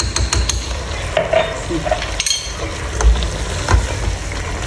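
Chicken strips and bell peppers frying in a pot with a steady sizzle while being stirred, a spatula clicking and knocking against the pot several times.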